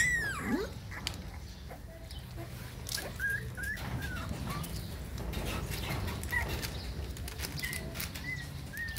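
Young puppies whimpering and squeaking in short, high calls: a louder falling squeal at the start, then a few brief squeaks spread through. Under them, rustling and scuffling as the puppies nose about on cloth.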